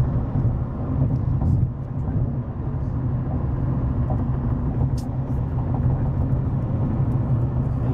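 Steady low road and engine rumble heard from inside a moving car at freeway speed, with a brief click about five seconds in.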